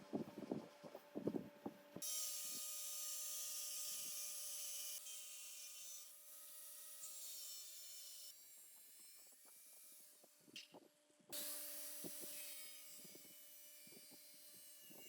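Workshop hand-work on metal parts: a few quick knocks, then two long stretches of hissing, scraping or rubbing that start and stop abruptly, over a faint steady hum.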